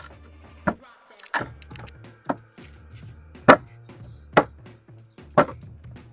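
Hammer striking a wooden fence board six times, roughly one blow a second, the loudest about halfway through.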